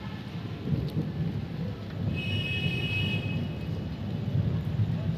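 Thunderstorm: a continuous low, uneven rumble of thunder and storm noise. A brief high-pitched tone cuts in about two seconds in and lasts a little over a second.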